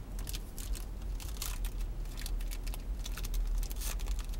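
Foil wrapper of a trading-card pack crinkling and crackling as fingers pick at it and peel it open, in short irregular clicks and rustles over a steady low rumble.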